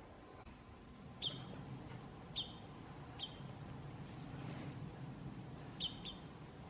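Parrot crossbill calling: five short, sharp call notes, each dropping slightly in pitch, spaced unevenly, the last two close together near the end.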